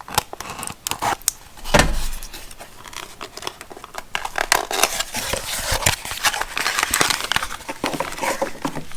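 Plastic packaging crinkling and rustling as it is handled and torn open, with many small clicks and one thump about two seconds in.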